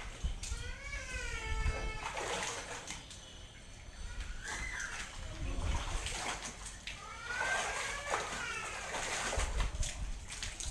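Wet clothes being wrung and dunked in plastic buckets of water, with splashing and sloshing. Over it come a few drawn-out, wavering vocal notes: one about a second in, a short one near the middle, and a longer one later on.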